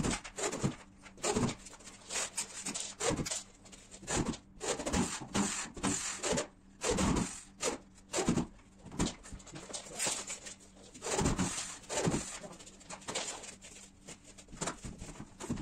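Irregular rubbing and scraping strokes against gypsum board, one or two a second, as a drywall joint is worked by hand.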